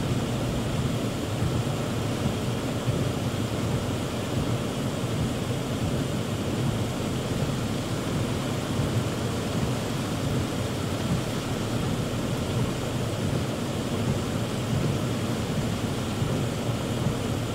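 Heavy rain falling on a car's roof and windshield, heard from inside the car as a steady, dense noise.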